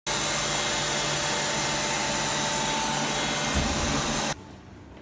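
Medical negative-pressure suction machine's high-speed blower motor running loudly as a steady rush of air with a few faint steady tones. It cuts off suddenly about four seconds in. The motor has been reported for abnormal noise, which the repairer suspects comes from a bad bearing.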